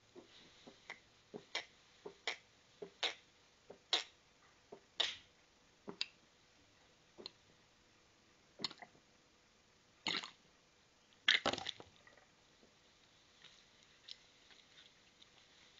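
A long-haired cat retching: a quick run of short heaves, then further apart and louder, ending in the loudest burst as it brings up a mouthful of dry kibble.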